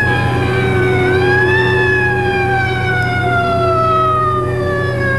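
Emergency vehicle siren wailing, its pitch rising briefly about a second in and then falling slowly and steadily, over a steady low hum.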